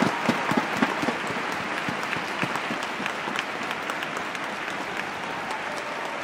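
Arena crowd applauding, the applause slowly dying down.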